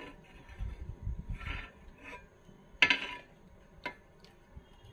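Iron tawa being handled over a gas stove burner: soft bumps and scrapes, then a sharp metallic clack with a short ring about three seconds in as the griddle knocks against the burner's pan supports. A couple of faint ticks follow.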